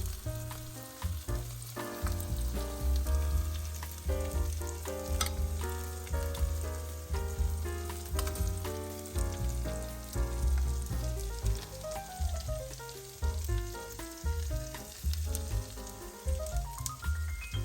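Background music: a melody of quick short notes with rising runs, over a deep steady bass. Faint food sizzling in a frying pan underneath.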